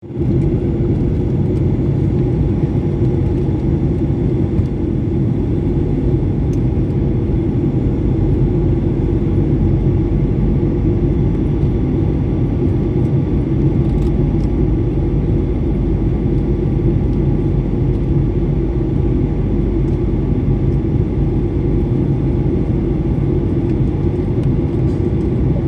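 Airliner cabin noise in flight: a steady, loud mix of engine noise and rushing air, with a faint steady tone running through it.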